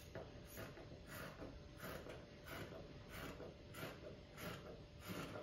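Fabric scissors snipping through knit fabric in a steady run of cuts, about three snips every two seconds.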